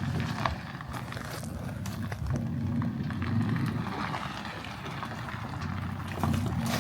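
A vehicle engine running at low speed, a steady low hum, with scattered light knocks and clatter.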